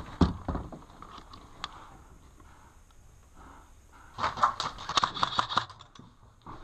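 Footsteps on dry dirt with gear and rifle rattling as a player shifts position in cover: a few knocks at the start, then a quick run of steps and rattles about four seconds in.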